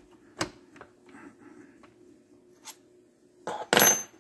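A few light metallic clicks and taps of a steel pin and punch being handled in a transmission shift-rail fork. Near the end comes a brief, loud metallic clatter with a high ring, as a small steel part or tool is set down.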